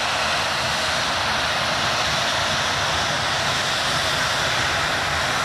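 A Boeing 737-800's CFM56-7B jet engines running steadily as the airliner taxis slowly, heard as an even, unchanging rush of jet noise.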